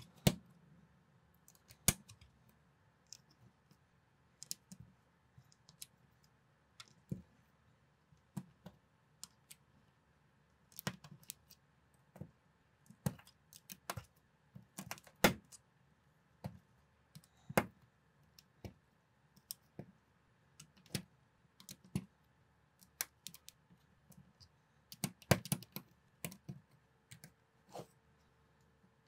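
Plastic building bricks being pressed and snapped together by hand, giving sharp irregular clicks every second or two, with a quick cluster of clicks near the end.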